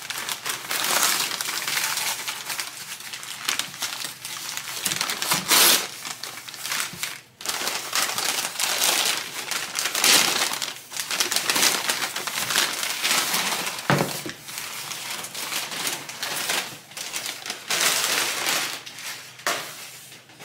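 Thick packing paper crumpling and rustling in irregular bursts as it is pulled off and unwrapped from a frying pan, with a few brief pauses. A single dull knock about 14 seconds in.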